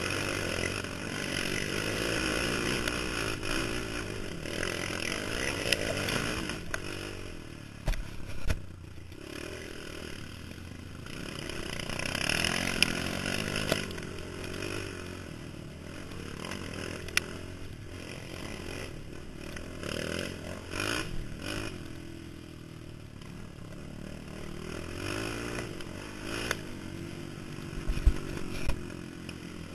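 Sport quad's engine revving up and down as it rides a bumpy dirt trail, heard from the rider's helmet camera, with rattling and scraping. A few sharp knocks come from jolts over bumps about eight seconds in and again near the end.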